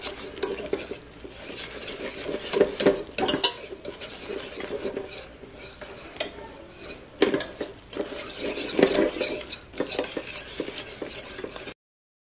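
Wire whisk stirring and scraping a thick onion, jalapeño, flour and milk mixture around a stainless steel pan, with irregular clicks of metal on metal as the milk is worked in. The sound stops suddenly near the end.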